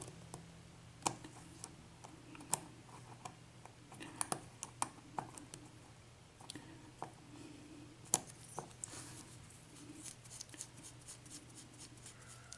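Brass padlock being handled and unscrewed for disassembly: scattered light metallic clicks and ticks with faint scraping, the sharpest click about eight seconds in, over a faint steady low hum.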